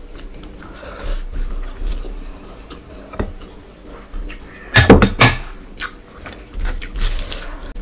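Close-miked eating sounds: food handled by hand and chewed, with a short cluster of sharp, loud clicks and knocks about five seconds in.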